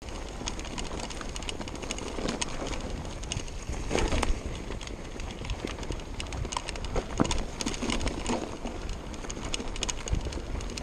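Yeti SB6 mountain bike rolling down a dirt trail: tyres crunching over dirt and the bike rattling and clicking over rough ground, with louder knocks over bumps about four and seven seconds in. Wind rushes on the chest-mounted camera's microphone.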